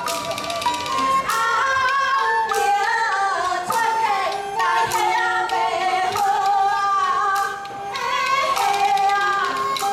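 A woman singing a Taiwanese opera (gezai) melody in a high, gliding voice over instrumental accompaniment, with sharp percussion strikes now and then.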